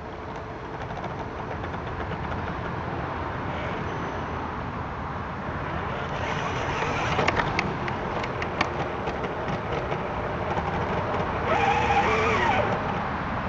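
Radio-controlled scale off-road truck driving over a leafy dirt trail, heard from on board: a steady motor and drivetrain drone with a run of sharp clicks and crunches from the tyres and chassis in the middle, and a louder burst of motor whine near the end.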